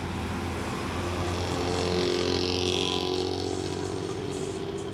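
Diesel intercity coach passing close by, its engine and tyre noise building to a peak about two seconds in and then easing as it moves away. A motorcycle passes close in front at the start.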